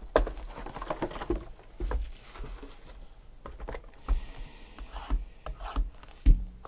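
Hands handling trading-card packs and their cardboard box on a table: a scattered run of light taps, clicks and soft knocks with some rustling, the loudest knock about six seconds in.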